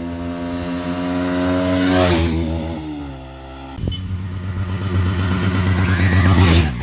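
Motorcycle engine held at high revs as the bike passes by twice at speed. It gets louder to a peak, then its pitch drops as it goes past.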